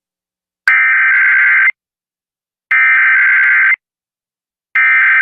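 Emergency Alert System SAME header: three buzzy bursts of digital data tones, each about a second long with a second's gap between them, the third starting near the end. It is the coded header that opens an alert, here a tropical storm warning.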